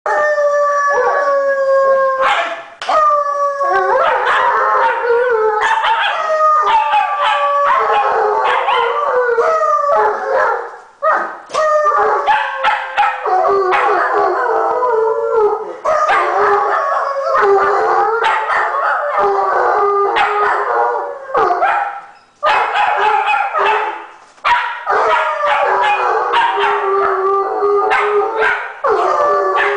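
A large dog howling in long notes that slide slowly downward in pitch, overlapping one another, with many short sharp barks and yips mixed in throughout.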